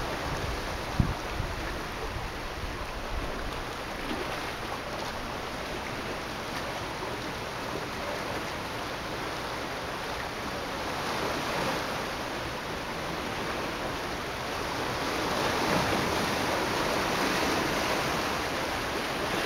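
Small sea waves washing against shoreline rocks: a steady rushing wash that grows louder in the last few seconds. A brief low bump about a second in, likely wind on the microphone.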